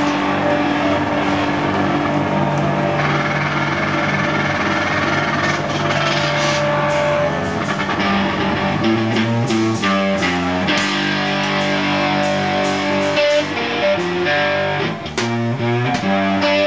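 Live rock music from a guitar-and-drums duo: electric guitar playing over drums. The guitar's long held notes give way to shorter, choppier chords about halfway through.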